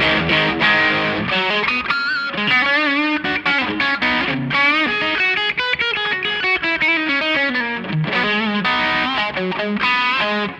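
Electric guitar, a Fender Stratocaster, played through a DIY Tube Screamer overdrive circuit built around a JRC4558 op-amp. It gives distorted lead lines and riffs with string bends and vibrato, and stops abruptly just before the end.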